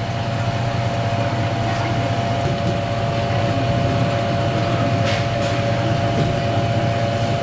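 A steady mechanical hum: a low drone with a thin, unchanging higher tone over it, and a couple of faint clicks.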